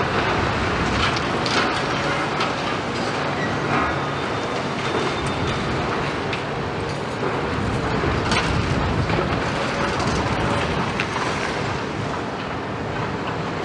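Diesel engines of tracked hydraulic excavators running steadily, with scattered clattering and knocks as a grapple and bucket handle and drop concrete rubble and scrap.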